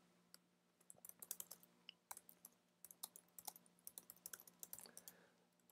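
Faint typing on a computer keyboard: an irregular run of quick key clicks starting about a second in.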